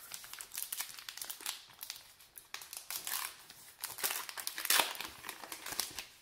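A 2012 Topps Gypsy Queen trading card pack being torn open by hand, its wrapper crinkling and tearing in irregular crackles. The sharpest crackle comes just before five seconds in.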